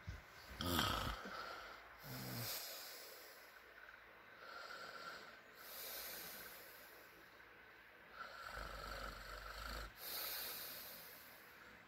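A man snoring in his sleep: slow breaths in which a low rattling snore alternates with a breathy hiss, about three full breaths, the loudest snore about a second in.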